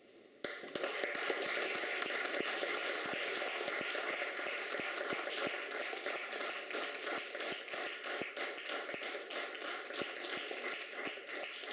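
Audience applause, breaking out suddenly about half a second in and going on steadily.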